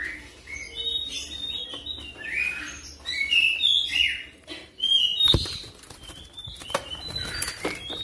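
Oriental magpie-robin (kacer) singing a fast, varied run of whistles, chirps and pitch glides. A sharp thump about five seconds in, and a few fainter clicks near the end.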